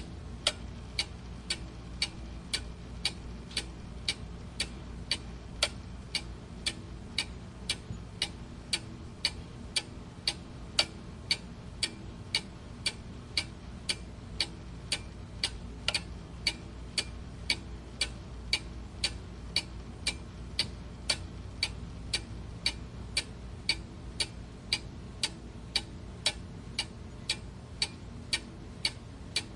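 Mechanical clock ticking steadily, about two sharp ticks a second, over a faint low hum.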